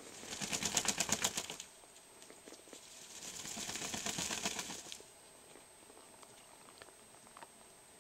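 Muscovy ducks flapping and shaking their wings: a quick burst of rapid, rattling wing beats lasting just over a second, then a second, longer and softer bout of flapping and feather rustling a few seconds later.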